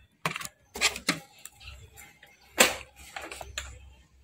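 Irregular clicks and knocks, about half a dozen, from handling flat ribbon cables and their plastic connectors on an opened LED TV's metal chassis; the loudest knock comes a little past halfway.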